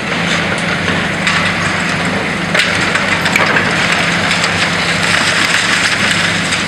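High-reach demolition excavator's diesel engine running steadily, with crackling and crunching of concrete and rubble breaking and falling as its jaws bite into the building.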